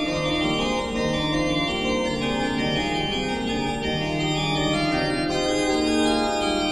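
Organ music: several held voices sounding together, each line moving to new notes at different moments, at a steady full level.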